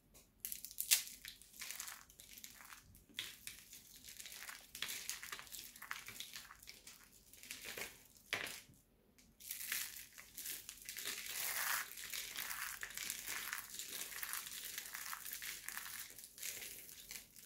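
Dried soap tubes and curls dusted with starch crushed and broken between the fingers: a dense run of crisp crackling and crunching, with a short lull about nine seconds in.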